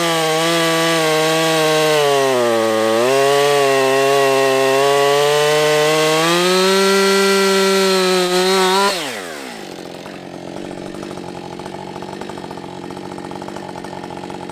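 Two-stroke gasoline chainsaw at full throttle cutting through a log; the engine pitch sags under load about two seconds in and then recovers. About nine seconds in the throttle is released and the engine winds down sharply to a much quieter idle.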